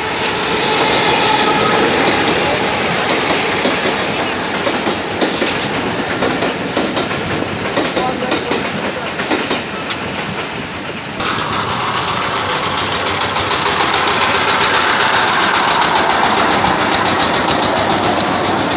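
Passenger train running past, its wheels clattering over the rails. About eleven seconds in the sound changes, and a steady high ringing tone joins the rumble.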